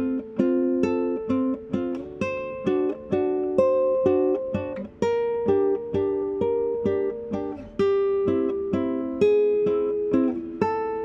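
Background music: a plucked-string tune, like a ukulele or guitar, picking single notes in an even rhythm of about two notes a second.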